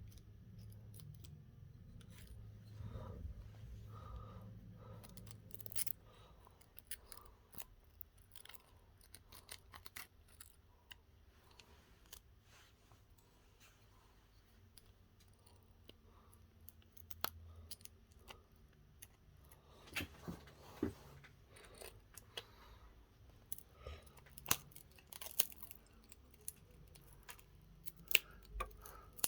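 Small hand tools and phone parts being handled during a phone repair: scattered sharp clicks, taps and light scrapes, with a busier run of louder clicks in the second half.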